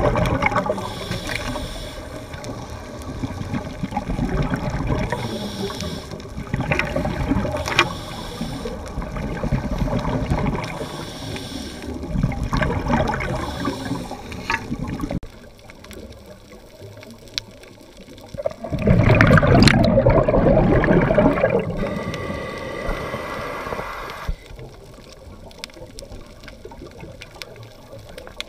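Underwater sound of scuba divers breathing through regulators: exhaled bubbles rush out in surges every few seconds, with the loudest, longest burst about two-thirds of the way through.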